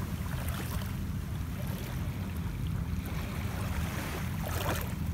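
Shallow sea water moving around a person wading and sitting in it, under a steady low wind rumble on the microphone; a short splash near the end.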